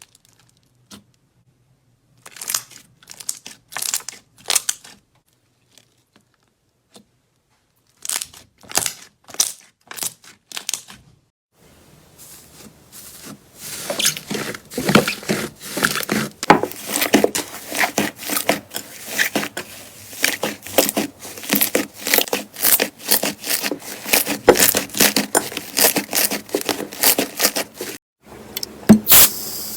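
Slime being pressed and stretched by hand, giving crisp crackling and popping clicks. There are a few short bursts at first, then dense, continuous crackling through the second half.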